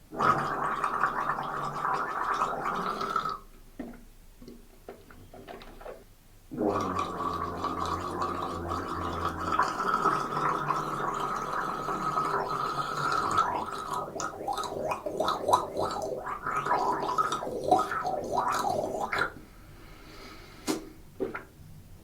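A person gargling liquid in the throat: a gargle of about three seconds, a pause of about three seconds, then a long gargle of about twelve seconds that turns choppy and bubbly before it stops.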